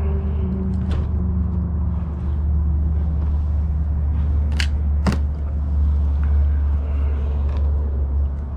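Steady low engine rumble, like a boat motor running nearby, its hum sinking slightly in pitch during the first couple of seconds. A few sharp knocks cut through it, two of them close together about halfway through.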